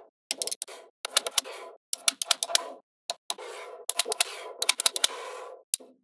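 Small magnetic balls clicking sharply as they snap together and rattling against one another as they are handled. The clicks come in quick groups, with short silent gaps between the groups.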